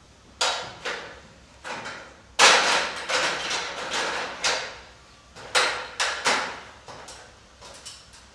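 Irregular knocks and bangs of installation work, a dozen or so uneven strikes, each fading quickly, the loudest about two and a half seconds in with a longer clatter after it.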